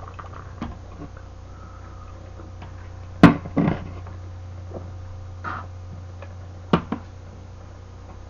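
A beer can is set down on a table with a sharp knock, followed by a few softer knocks and clinks, over a steady low hum.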